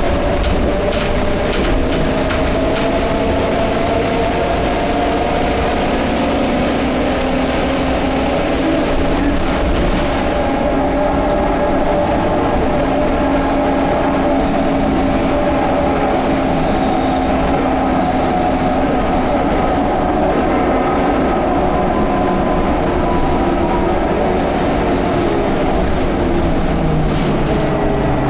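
Scania K230UB Euro V bus running, its drivetrain giving steady humming tones under a high-pitched whine, which about a third of the way in turns into a whistle that rises and falls over and over. The uploader suspects the turbo and the hub reduction axle as the source of these strange noises.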